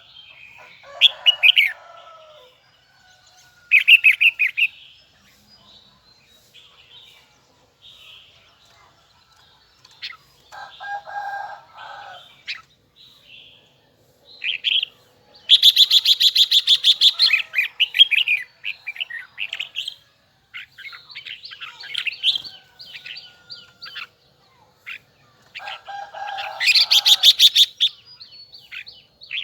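Red-whiskered bulbul singing in bursts of loud, quick phrases, with softer chirps in between.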